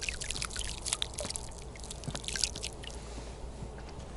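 Crumbly wet porridge groundbait dropping from a hand into lake water, a patter of small drips and splashes that thins out after about three seconds.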